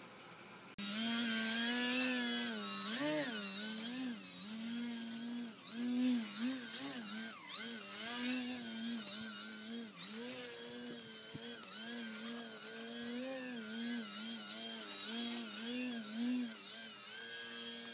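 Electric RC model aircraft motor whining, its pitch rising and falling continually with the throttle, over a thin steady high-pitched whine. It comes in abruptly about a second in.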